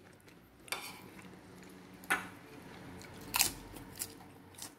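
A person chewing a mouthful of food close to the microphone, with four short sharp mouth clicks spread through it.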